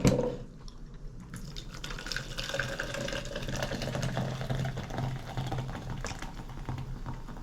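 A drink being poured into a cup in a steady stream for several seconds, starting about a second in, after a short knock.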